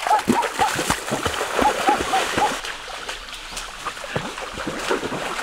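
Water splashing and sloshing in a shallow creek. Over it, an animal gives a run of quick, repeated high calls near the start and again about two seconds in.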